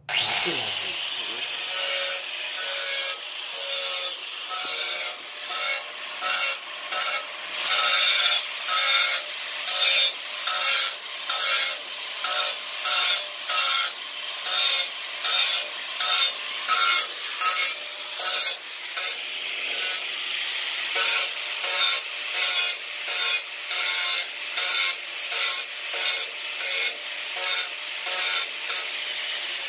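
Handheld electric angle grinder with an abrasive disc grinding the edge of a hole in a ceramic tile to widen it. The motor runs steadily while the disc is worked back and forth, the noise swelling about once a second with each pass against the tile.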